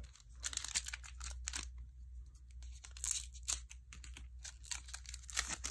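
Foil wrapper of a Prestige football card pack being torn open and crinkled: a run of short, uneven crackling rips.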